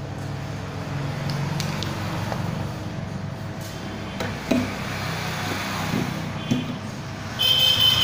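Hot-air rework station blower running with a steady low hum, with a few light knocks of tools set down on the bench. Near the end a loud high-pitched whine sets in.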